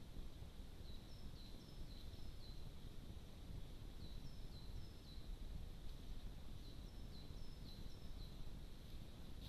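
A small songbird singing faint, high, quick phrases of short falling notes, alternating between two pitches, each phrase about a second long and repeated roughly every three seconds, over a steady low rumble.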